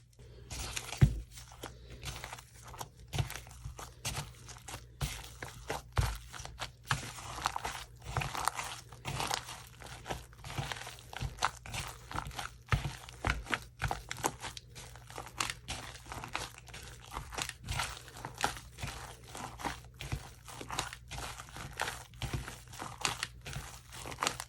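Hands kneading and stretching sticky slime with shaving cream worked in, making a steady run of irregular sticky clicks, pops and crackles.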